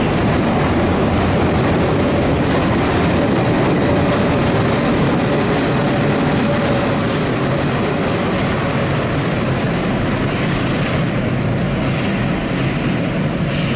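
London Underground train running on the track: a steady rumble with a faint held whine in the middle, easing slightly near the end.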